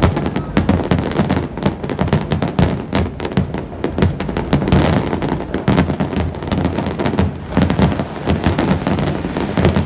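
Dense barrage of aerial firework shells bursting, a rapid run of overlapping bangs and crackles with no pause between them.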